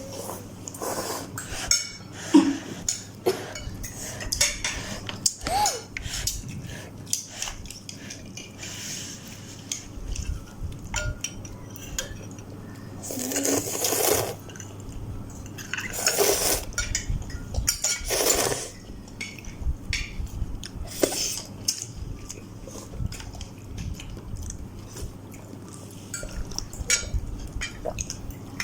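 Spoon or fork clinking and scraping against a bowl while instant noodles are eaten, with many small clicks and a few longer noisy bursts in the middle.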